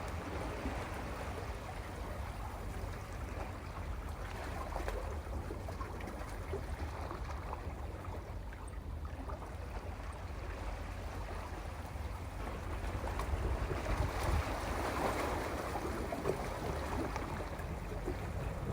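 Sea waves washing on a rocky shore: a continuous wash of surf that swells louder for a few seconds past the middle, then eases back.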